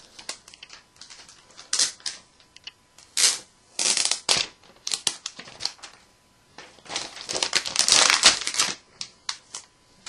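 Handling sounds of an iPad 2 and its plastic wrapping: scattered sharp clicks and short crinkles, with a denser stretch of crinkling about seven to nine seconds in.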